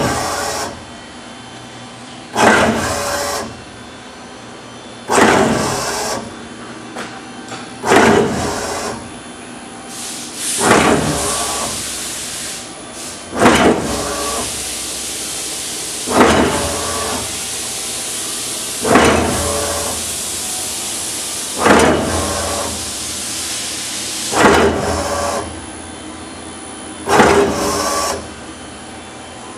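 Servo-driven flying shear press cycling automatically, cutting vinyl with a crop die: a sharp strike and about a second of fading machine noise, repeating evenly about every 2.7 seconds, about ten strokes in all. A steady hiss runs underneath through the middle stretch.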